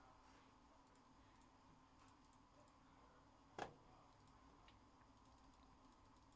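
Near silence with faint clicks of trading cards being handled, and one sharper tap a little past halfway through.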